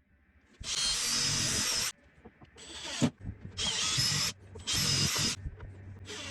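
Power drill running in five short bursts of about a second each, with a high motor whine; the second burst winds up gradually before a sharp hit.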